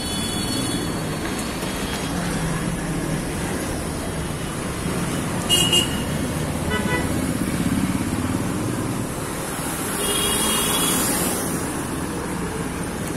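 Steady street traffic of passing motorcycles and scooters, with short horn toots: one sharp toot about five seconds in and another a few seconds before the end.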